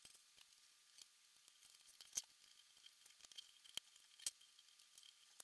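Near silence broken by a few faint clicks and taps as the plastic body of a toy remote-controlled car is handled and fitted back together.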